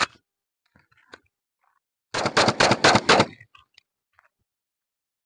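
A rapid burst of about ten gunshots in just over a second, starting about two seconds in. A single short, sharp knock comes at the very start.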